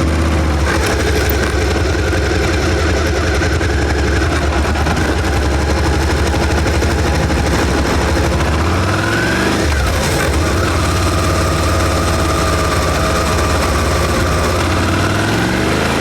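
A Suzuki SV650's 645 cc V-twin running at low speed through its stock exhaust. The engine note holds steady, dips and picks up again about nine to ten seconds in, and begins rising again near the end.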